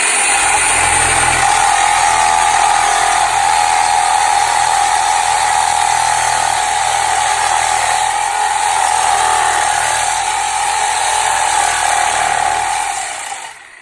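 Reciprocating saw running under load, its blade sawing into wood and hitting embedded metal, so the cut goes hard. It runs steadily with a constant whine, then winds down near the end.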